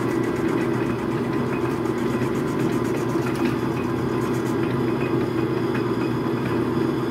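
Logan metal lathe running with a steady hum from its motor and drive during a facing cut on the end of a workpiece.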